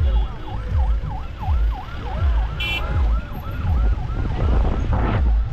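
A fast yelping siren from a vehicle in a road convoy, its pitch dipping and rising about four times a second, over low vehicle rumble. A short high horn toot sounds about halfway through.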